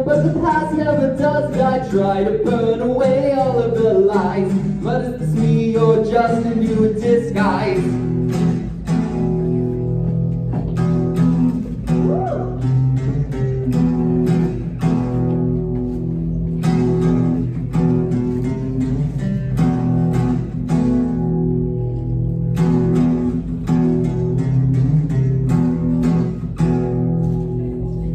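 Solo acoustic guitar and voice: a sung line over strummed chords, the voice ending about eight seconds in, after which the acoustic guitar goes on strumming chords alone.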